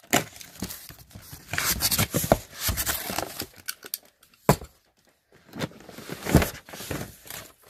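Box cutter slicing packing tape on a cardboard case, then the cardboard flaps being pulled open and the product boxes inside handled: a run of irregular scrapes and rustles, with a sharp knock about halfway through.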